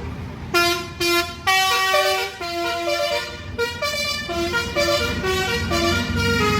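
Indonesian bus 'telolet' horn, a Basuri multi-tone air horn, playing a quick tune of short notes at changing pitches, several a second, starting about half a second in, over a low rumble.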